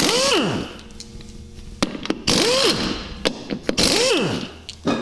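Pneumatic impact wrench hammering lug nuts off a golf cart wheel in three short bursts, each with a whine that rises and falls over a rapid rattle. A few sharp knocks come between the bursts.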